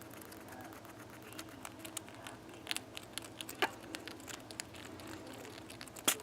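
Pet rat bruxing: soft, irregular clicking of its incisors grinding together, a sign of a relaxed, content rat. A sharper click stands out about three and a half seconds in and another louder one near the end.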